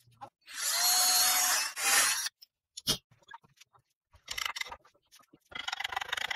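Wood scraping and squeaking against wood as a tight-fitting joint piece is pushed into its slot: a long grinding push lasting over a second, a sharp knock near three seconds in, and two shorter scrapes near the end.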